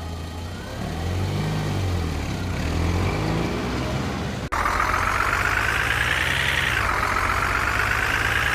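A vehicle engine running with a low, uneven throb, then switching abruptly about halfway through to a higher engine whine. The whine climbs steadily in pitch, drops suddenly near the end, and carries on.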